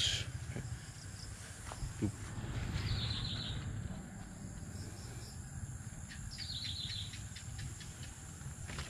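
Garden ambience: a steady high-pitched insect drone over a low rumble. A bird calls twice, each a short run of chirping notes, about three seconds in and again a few seconds later.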